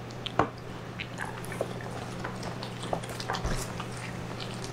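Two small dogs eating from bowls: scattered chewing, smacking and soft clicks as they pick at their food, with one sharper click about half a second in.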